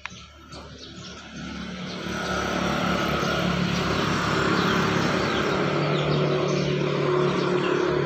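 A motor vehicle engine running, growing louder over the first two seconds or so and then holding steady. Its low hum drops a little in pitch about halfway through.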